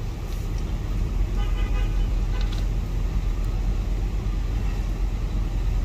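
Steady low rumble of vehicle noise in the background, with no clear single event.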